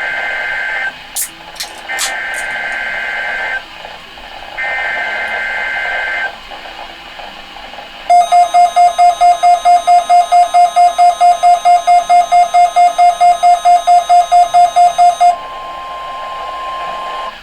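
NOAA Weather Radio SAME header for a Required Weekly Test: bursts of warbling two-tone digital data over radio static, ending about six seconds in, with a few sharp clicks near the start. Then a weather radio's alarm beeps rapidly, about four loud beeps a second for some seven seconds, and gives way to a fainter steady tone near 1 kHz.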